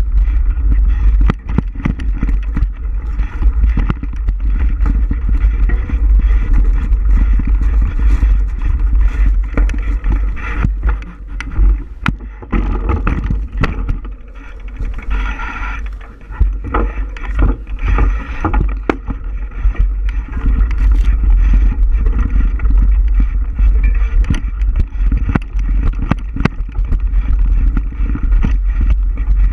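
Riding a bike over a rough trail: heavy wind buffeting on the microphone with a constant rattle of knocks and jolts from the bumpy ground.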